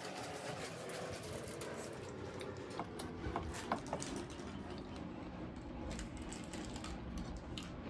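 Eating sounds: scattered small clicks and mouth smacks over a steady background hiss.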